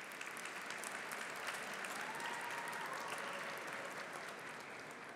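Audience applauding, building over the first couple of seconds and tailing off near the end.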